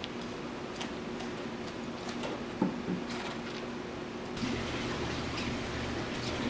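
Wet squelching and small crackles as a yellowtail's gills and guts are torn out by hand on a plastic cutting board, with one sharp knock a little over halfway in. A steady hum of kitchen equipment runs underneath, growing a little louder in the last third.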